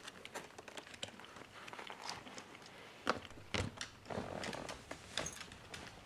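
Chihuahua puppies eating dry kibble from a plate: irregular crunching and clicking of the kibble against the plate, with a few louder clicks about halfway through.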